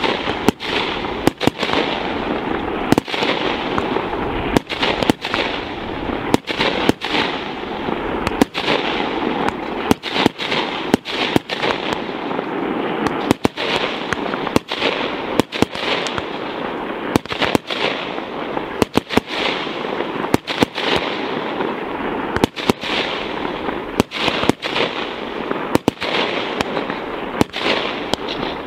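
Fireworks display: a dense, unbroken run of bangs and crackling, with sharp reports several times a second over a continuous crackle.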